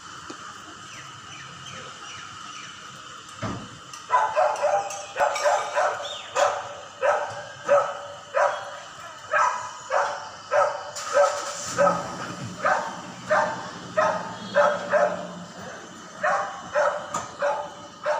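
Dog barking over and over, starting about four seconds in at roughly two barks a second and keeping on without a break.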